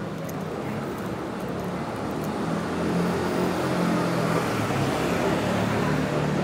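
A motor vehicle on the street close by, its low motor hum growing louder over the first three seconds or so, then holding steady.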